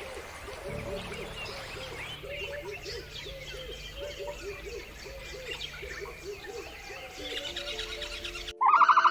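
Birds calling over background music: a run of short repeated low calls, several a second, with higher chirps above them. Near the end it cuts suddenly to a much louder, rapidly pulsing call.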